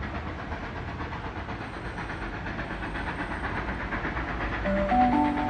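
Steam locomotive approaching in the distance, a steady hiss of steam and exhaust slowly growing louder. Near the end, three rising tones of a station PA chime.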